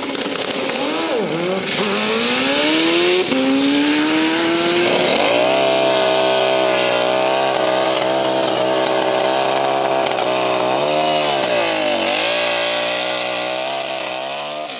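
Drag racing vehicle's engine at full throttle, loud. The revs climb and fall back twice in the first few seconds, then hold steady and high, dipping briefly about 11 seconds in.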